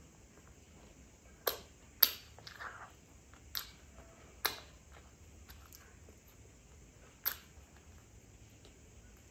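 Close-miked eating sounds: sharp mouth clicks and smacks as a Khmer dessert pastry is bitten and chewed. There are about five spread unevenly, the loudest about two seconds in.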